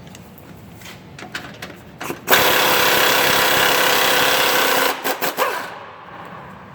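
A handheld power tool runs steadily for about two and a half seconds while a part is taken off to free up access, then gives a few short trigger bursts; light clicks of tools before it.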